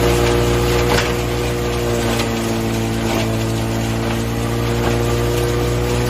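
Sundance horizontal hammer-mill grinder running steadily as it grinds finished compost: a constant engine and machine drone with a few faint knocks from material passing through.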